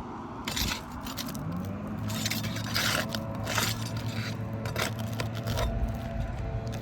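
A tool scraping and clicking under asphalt roof shingles in a run of short strokes as a roofing nail is worked loose, with an engine humming underneath.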